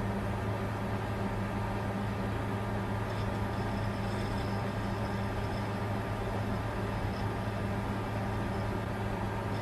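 Bitcoin mining computer running: a steady low hum over an even whir, with a faint high whine coming in about three seconds in.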